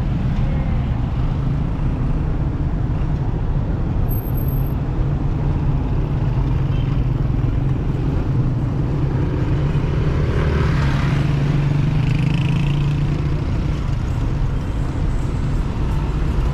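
Road traffic: a steady low rumble of car engines that swells louder for a few seconds about ten seconds in.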